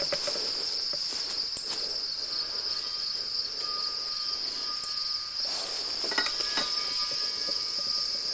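Insects chirring steadily in the grass, one continuous high-pitched drone, with a few light clicks and rustles from handling.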